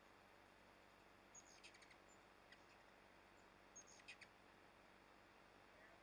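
Hummingbird giving faint, high-pitched chips in two quick clusters, about a second and a half in and again about four seconds in, with a single chip between.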